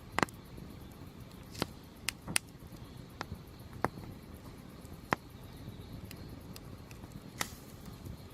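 Firewood crackling in a campfire: about eight sharp, irregularly spaced pops and snaps over a low, steady noise.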